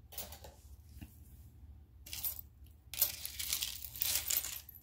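Metal costume jewelry clinking and jangling as a hand rummages through a pile of pieces on a marble tabletop: a couple of brief rattles, then a longer stretch of jangling over the last two seconds.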